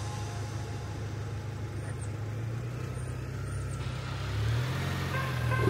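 Truck engine running steadily at low revs, a low hum that grows a little louder near the end.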